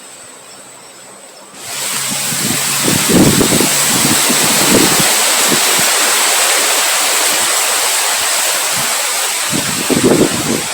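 Heavy rain and wind: a loud, even rush cuts in sharply about a second and a half in, with gusts of wind buffeting the microphone. A steady high-pitched tone runs underneath.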